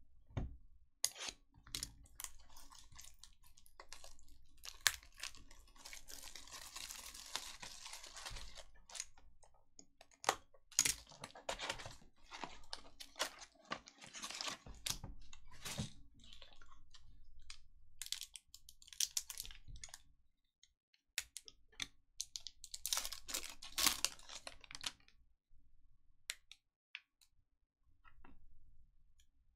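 Hockey card packs and boxes being opened by hand: crinkling and tearing of pack wrappers in a few longer stretches, among many quick clicks and taps of cards and cardboard.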